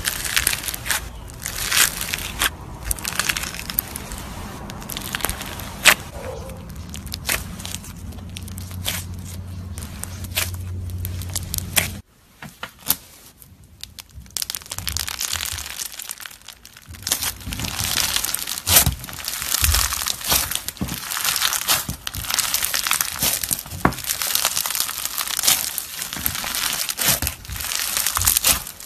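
Hands squishing and squeezing foam-bead slime, the beads giving off dense crackling and crunching. A low hum sits under the first part; after a cut about twelve seconds in it goes quieter for a few seconds before the crackling picks up again.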